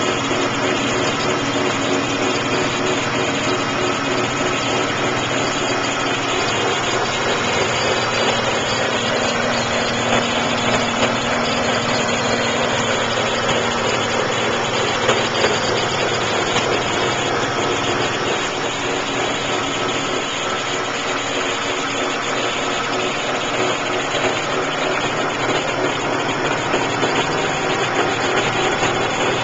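BMW Z3 Roadster's 2.5-litre inline-six idling steadily, heard close up under the open hood. A steady extra engine noise that the owner cannot identify, loudest near the alternator, runs along with the idle.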